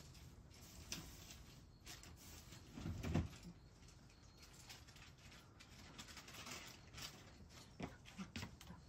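Quiet outdoor background with faint scattered clicks and rustles, and a soft low thump about three seconds in.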